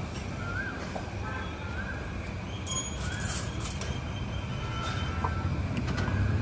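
Roadside street-stall ambience: a steady low traffic rumble, with faint short chirps repeating about once a second and a few light clicks about halfway through.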